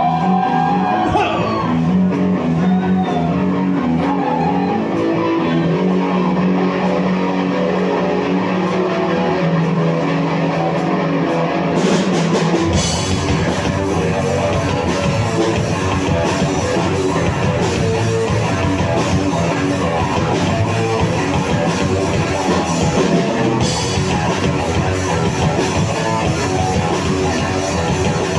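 Live rock band playing: a guitar part carries the first part, then about twelve seconds in the drums with cymbals and the full band come in.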